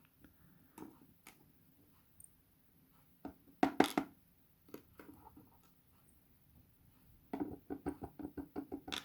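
Small sharp clicks and taps of lock parts being handled on a work surface, a few scattered, a louder cluster near the middle, and a quick run of about a dozen ticks near the end.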